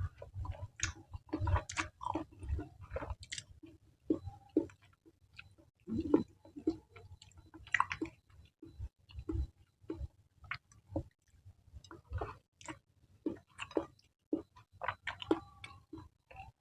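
Close-miked wet chewing of saucy spicy noodles (mie nyemek), with irregular mouth smacks and clicks.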